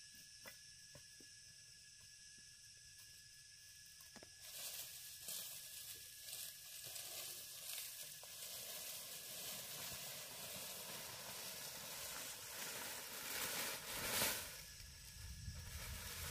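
Dry palm fronds rustling and crackling as they are gathered and handled. The sound starts about four seconds in, after a quiet start, and is loudest near the end.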